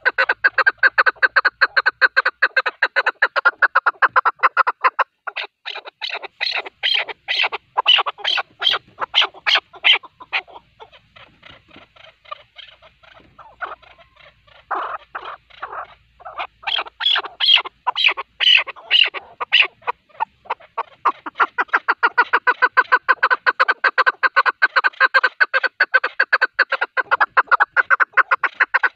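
Chukar partridge calling: a rapid, continuous run of short clucking notes, about five to six a second, louder and sharper in two stretches around the middle with a softer patch between them.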